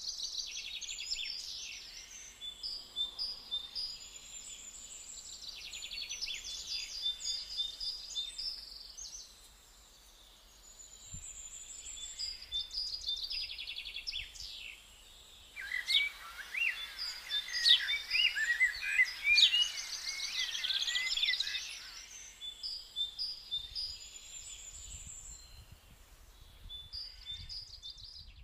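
Several small songbirds singing and chirping at once, high quick trills and tweets overlapping, busiest and loudest for several seconds in the middle.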